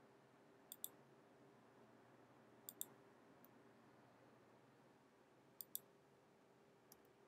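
Faint computer mouse clicks: three pairs of sharp clicks, each pair about a tenth of a second apart, and two fainter single clicks, over a faint steady hum.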